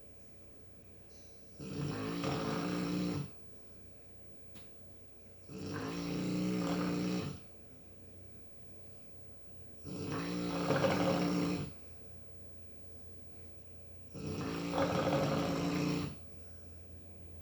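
Snoring in a slow, even rhythm: four snores about four seconds apart, each lasting about one and a half seconds, with quiet breathing between them.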